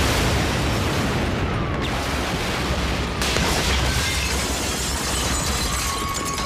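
Large building exploding in flames: a loud, sustained rumbling blast.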